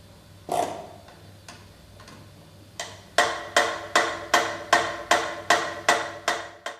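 Mechanical metronome starting up: a single knock, a few faint ticks, then steady, loud, even ticking at about two and a half beats a second that stops abruptly.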